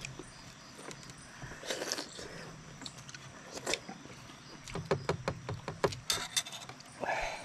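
Small clicks, taps and scrapes of food and eating utensils being handled, with a quick run of sharp clicks about five seconds in.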